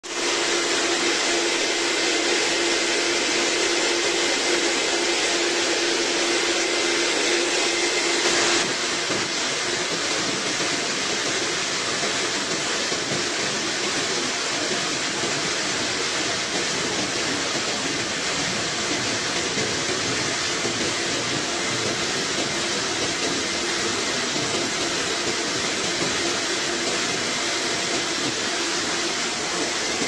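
Xingyi concrete floor grinder running, a steady mechanical noise with a held hum. About nine seconds in the hum drops out and the sound gets a little quieter, then runs on evenly.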